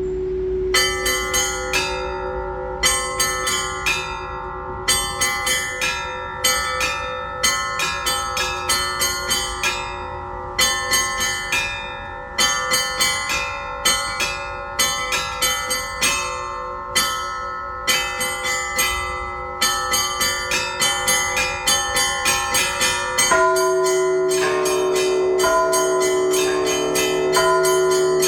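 Orthodox church bells ringing: small bells struck in quick rhythmic clusters over the steady hum of larger bells. About 23 seconds in, the ringing becomes continuous and denser, with the lower bells more prominent.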